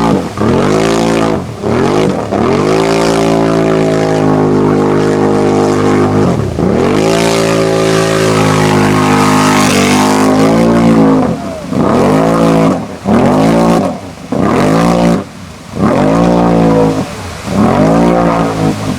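An off-road ATV engine revving hard while it runs through a mud bog hole. It holds high revs for several seconds at a time, then from about halfway through blips up and drops back roughly once a second.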